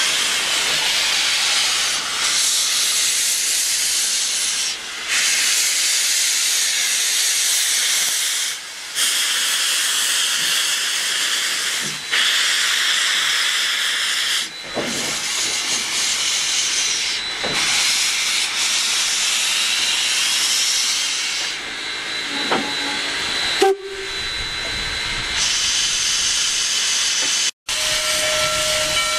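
Rio Grande Southern No. 20, a steam locomotive, hissing steadily as it vents steam. The hiss breaks off briefly every few seconds. Near the end a steady pitched tone begins.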